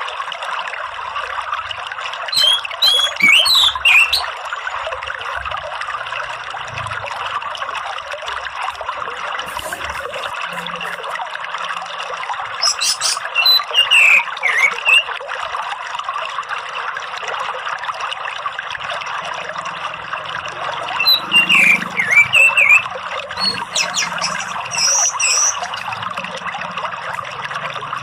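Orange-headed thrush calling in short bursts of quick, chattering whistled notes, four times, over steady running water.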